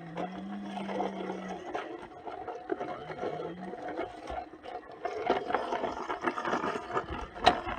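Small electric motor of a toy construction vehicle whirring in two short runs, with scattered clicks and knocks and one sharp click near the end.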